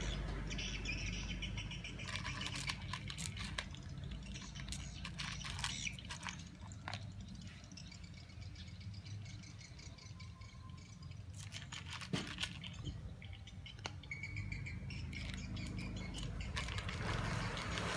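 A domestic cat crunching cat kibble, heard as irregular clusters of small crisp clicks and crunches that come and go, over a low steady rumble.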